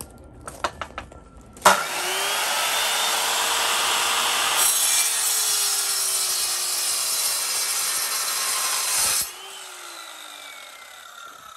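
Guild mitre saw cutting through a marked piece of a mini carpet kicker: a few clicks of handling, then the motor starts with a rising whine, runs loud and steady with the blade in the cut, and is let off about nine seconds in, winding down with a falling whine.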